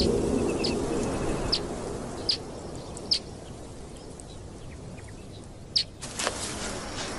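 Birds calling at dawn: short, sharp high chirps every second or so, one at a time. A few soft scuffing noises come in near the end.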